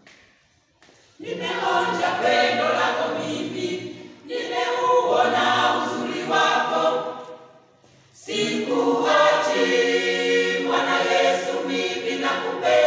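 Church choir singing a Swahili hymn in parts, unaccompanied. The voices come in about a second in and sing in phrases, with short breaths between them twice.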